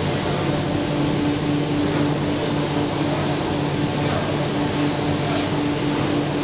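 Automatic spray-painting machine for MDF boards running: a steady rush of air with a constant low motor hum, and a short high hiss about five seconds in.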